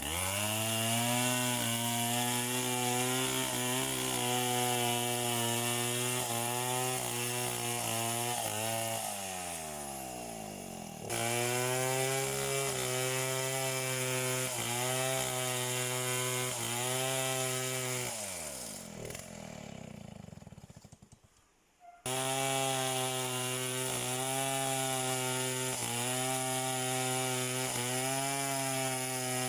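Two-stroke chainsaw running at high speed and cutting wood, its engine note dipping under load about once a second. Twice the engine winds down, nearly to silence the second time, before full speed comes back abruptly.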